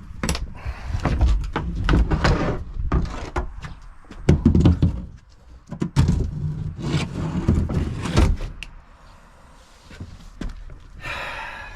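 A run of knocks, thuds and scraping clatter as things are moved and handled around the boat's engine area. It quietens after about eight seconds.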